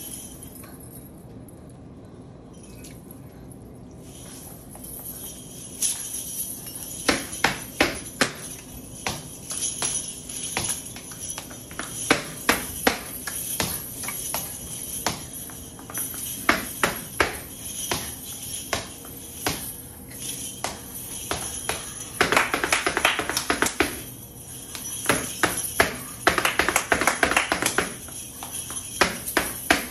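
Flamenco dancer's percussion: sharp stamps of the shoes and handclaps (palmas) in irregular runs, with a jingling of metal coins. It starts about five seconds in and has two dense rattling flurries in the second half.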